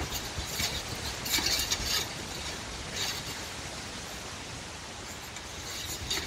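Steady wind noise with irregular bursts of clicking and rattling, a cluster of them about a second and a half in, others around three seconds and near the end.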